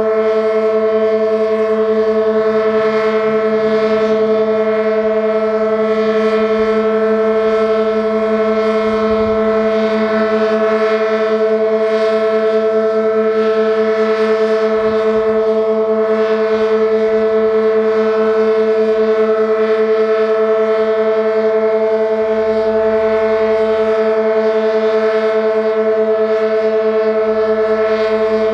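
Sentry 16V1T-B outdoor warning siren sounding a steady alert tone, held at one unchanging pitch with a stack of overtones. It is a sick siren running on dying batteries.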